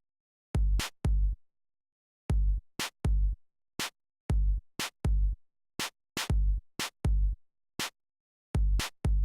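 Background music: a sparse drum-machine beat of deep kick-drum thumps and sharp higher hits, with dead silence between the strokes and no other instruments.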